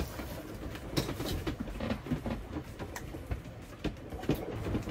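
Irregular knocks and clicks, roughly one a second, over a steady low rumble aboard a sailboat under way and heeled over.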